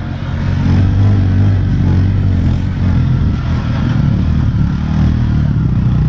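Motorcycle engine running steadily, heard from the seat of the bike as it is ridden along a dirt track.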